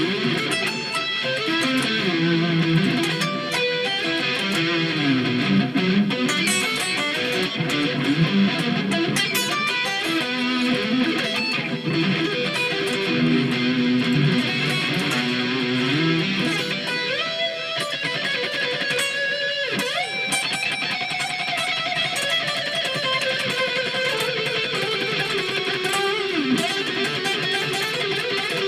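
Electric guitar being practised in rock style: runs of quick picked notes in the first half, then longer held notes that bend and slide in pitch.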